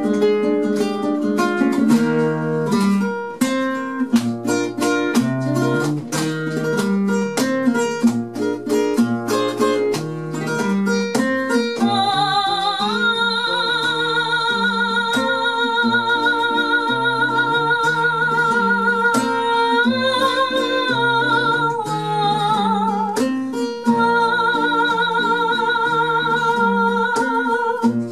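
Flamenco guitar plays a picked passage. About twelve seconds in, a woman's voice joins it, singing a guajira in long, wavering held notes over the guitar, with a brief break about twenty-three seconds in.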